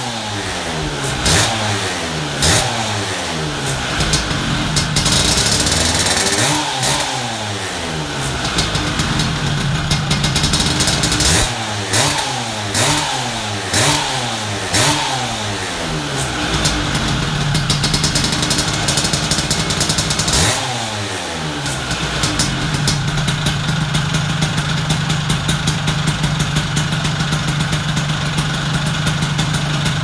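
Vintage Vespa's two-stroke engine through an aftermarket Rain Attack exhaust, blipped in quick clusters of revs that fall back each time, with steady idling between; the longest idle comes in the last third.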